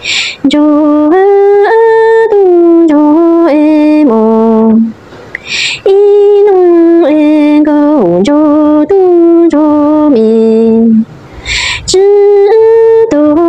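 A woman singing kwv txhiaj, Hmong sung poetry, as an orphan's lament, in long held notes that step between pitches. She pauses briefly for breath about five and eleven seconds in.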